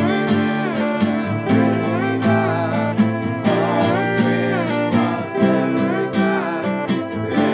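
Acoustic folk band playing live: strummed acoustic guitar and ukulele with fiddle and a sung vocal.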